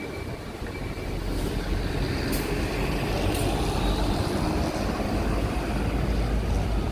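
Street traffic noise, a steady low rumble of road vehicles that gets louder about a second in.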